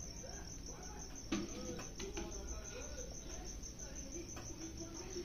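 Steady, fast, evenly pulsed high-pitched insect trill, with faint voices underneath and a single light knock about a second in.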